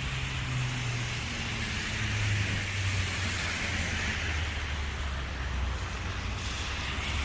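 Street traffic in a rain-and-snow storm: a vehicle engine's low hum, shifting slightly in pitch, over a steady hiss.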